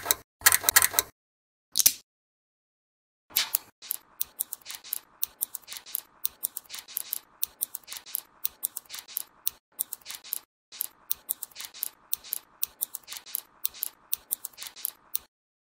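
Small magnetic steel balls clicking as they snap onto one another and onto a column of balls. A few separate clicks at first, then from about three seconds in a quick, irregular run of sharp clicks, several a second, as a strand of balls is wrapped on one by one.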